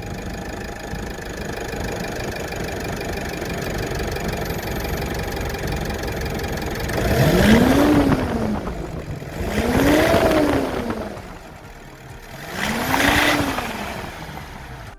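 Mercedes C200 d diesel engine idling steadily, then revved three times, each rev rising and falling back, from about seven seconds in.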